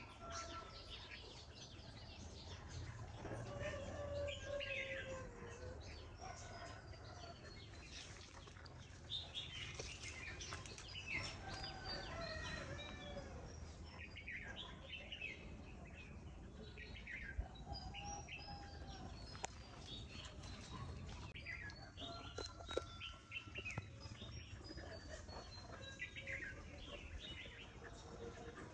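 Birds chirping and calling, many short notes, some in quick runs that step down in pitch.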